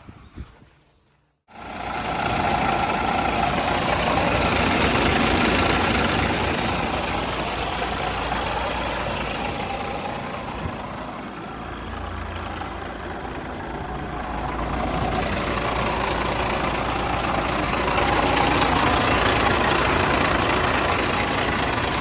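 Cummins diesel engine of a 1994 International 2674 truck running steadily. It cuts in abruptly about a second and a half in, eases off a little near the middle and picks up again.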